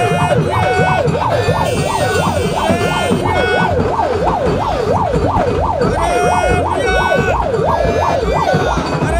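Electronic siren in a fast up-and-down yelp, about three sweeps a second, loud and continuous, with a held higher tone over it at times.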